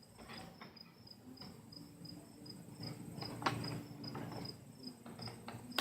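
A cricket chirping steadily, about three chirps a second, with faint clicks and handling knocks over it, one sharper click about three and a half seconds in.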